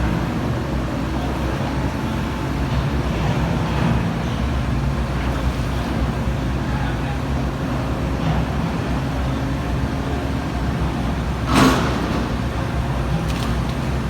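Komatsu PC350-7 excavator's six-cylinder diesel engine running with a steady low drone, with one brief loud clatter or bang late on.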